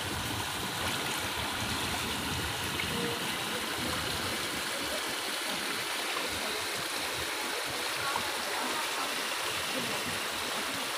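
Muddy floodwater rushing across a road, a steady, even wash of flowing water.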